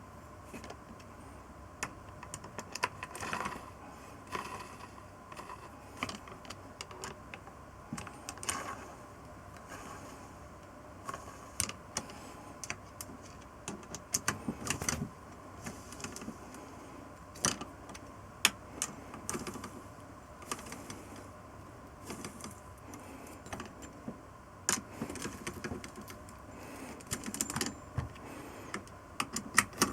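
Irregular metallic clicks, clinks and light knocks of hand tools and small metal parts being handled during engine reassembly, over a faint steady hum.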